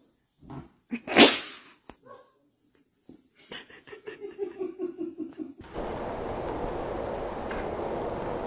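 A white puppy sneezes once, a short loud burst about a second in. Later comes a run of quick soft pulses, about five a second. From just past halfway a steady hiss of room noise takes over.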